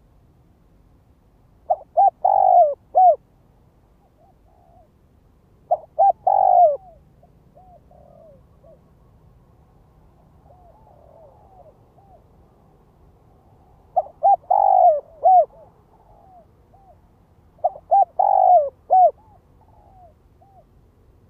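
Spotted dove cooing: four loud phrases, each a couple of short notes followed by a longer note, about four seconds apart, with fainter coos in between.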